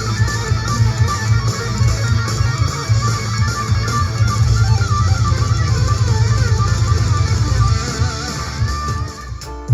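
Guitar-led music with strong bass played through a pair of ION Tailgater Tough Bluetooth speakers linked in true wireless stereo, recorded binaurally. It plays steadily with no cutting out or static, apart from a brief dip in level near the end.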